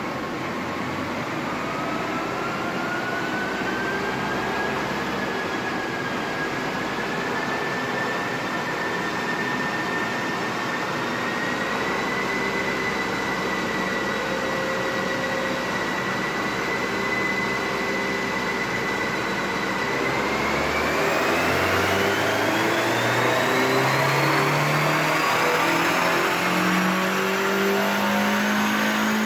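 VW New Beetle 1.8-litre turbocharged four-cylinder (AWV) running in gear on a chassis dyno, held at steady revs with a high whine. About twenty seconds in, a full-throttle dyno pull begins, and the engine revs and the whine climb steadily until near the end.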